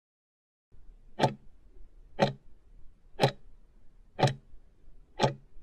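Clock-ticking sound effect marking an on-screen countdown timer: five sharp ticks, one a second, over a faint low hum.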